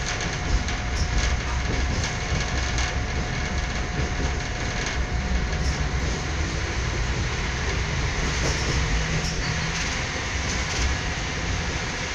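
A moving train heard from inside the carriage: a steady rumble and rail noise, with occasional faint clicks of the wheels over the rail joints.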